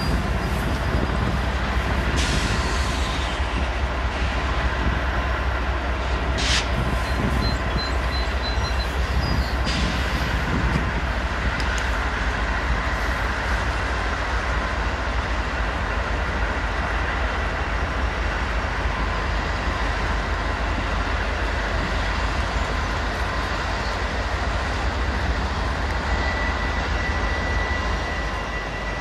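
Freight train with several diesel-electric locomotives passing close by: steady engine rumble and rolling wheel noise, with a few sharp clacks in the first part and a thin high wheel squeal that grows stronger near the end.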